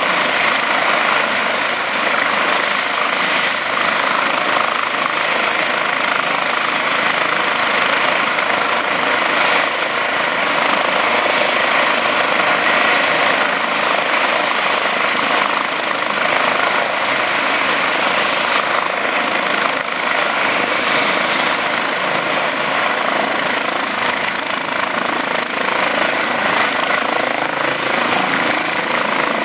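Eurocopter EC135 medical helicopter running on the ground, its turbines and main rotor turning at speed ahead of lift-off: a loud, steady chopping and turbine noise.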